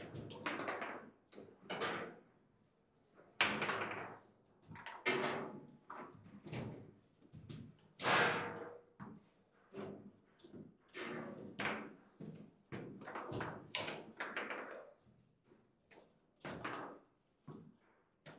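Table football in play: a run of irregular sharp knocks and thuds, one or two a second, as the hard ball is struck by the rod figures and bangs against the table.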